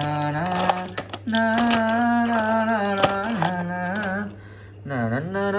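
Wordless singing: long held notes with slides between them, breaking off briefly near the end, over a steady low hum. A few light clicks of toy cars being handled on a plastic tray.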